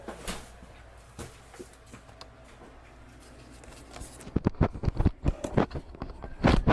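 Low steady rumble of a car cabin on the move, with a few light clicks, then a quick run of loud knocks and rubbing from the phone being handled, which stops abruptly at the end.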